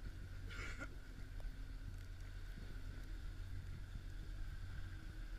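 Boat engine running steadily at low speed: a constant low hum with a steady higher whine above it, and a brief scratchy noise about half a second in.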